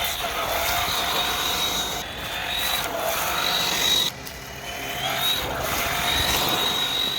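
Electric drivetrain of a Gmade GS02 scale RC crawler running: a 29-turn brushed motor and gearbox give a high whine that wavers in pitch over a rough, noisy background. The whine cuts out briefly about four seconds in, then picks up again.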